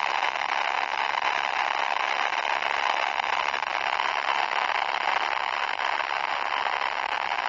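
Heavily distorted 'poop' sound effect, smeared into a steady, harsh, crackling noise with no clear pitch.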